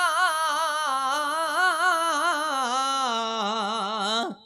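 Unaccompanied Punjabi kavishri singing: a male voice holds one long note with a wide vibrato, stepping down in pitch partway through, then breaks off abruptly near the end.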